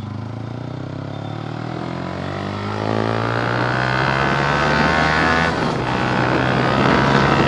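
Modified Yamaha R15 V3's single-cylinder engine pulling under acceleration. Its pitch rises steadily for about three seconds, then holds high, and it grows louder.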